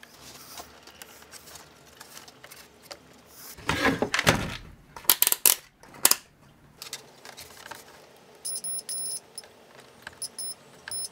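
A multimeter continuity tester beeps on and off in short, uneven beeps from about two-thirds of the way in, as a probe is touched to the pins of an aviation panel mount to check for shorts. Earlier, a cluster of sharp clicks and rustles comes from handling the wiring.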